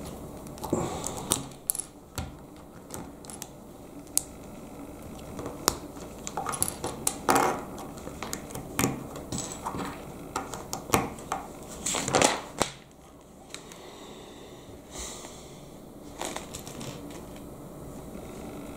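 Plastic Lego bricks handled and pressed together by hand: a run of sharp plastic clicks and taps, thinning out to a few scattered clicks after about thirteen seconds.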